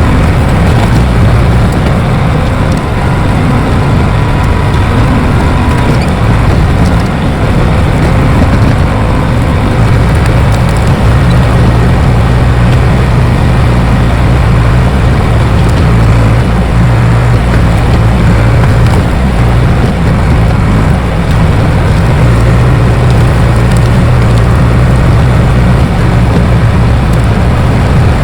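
Bulldozer's diesel engine running steadily under load.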